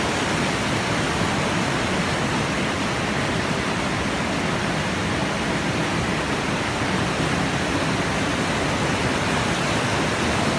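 River rushing: a steady, even rush of flowing water with no breaks.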